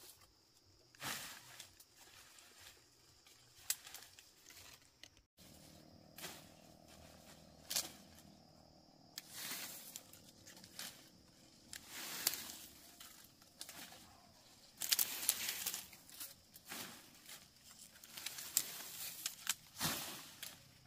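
Irregular rustling, crinkling and handling noises, some louder and clustered, with a brief dropout about five seconds in after which the background changes.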